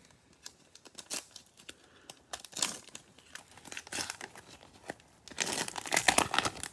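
Cellophane wrapper of a Mosaic football cello pack crinkling as it is torn open, in scattered crackles with a denser, louder burst of crinkling about five seconds in.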